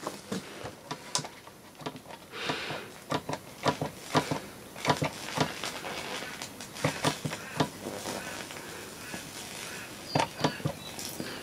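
Irregular sharp crackles and snaps, several a second and uneven in strength, from high-voltage arcing in the running saltwater capacitor setup.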